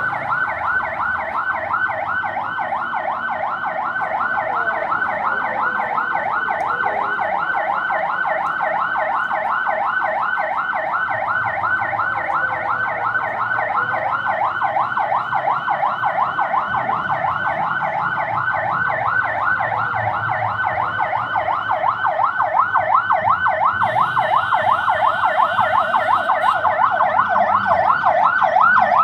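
Siren sounding a continuous fast yelp, about three to four rising sweeps a second, growing louder toward the end: the alarm signalling an earthquake drill.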